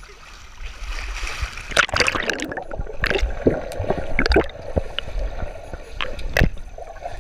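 Pool water heard through a submerged waterproof action camera: a brief hiss of splashing as it goes under, then muffled underwater gurgling with scattered sharp clicks and knocks on the camera housing.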